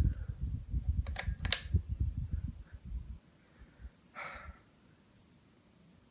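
Low rumbling thumps with a few sharp clicks about a second in, then a short hiss just past four seconds; after that only a faint steady background.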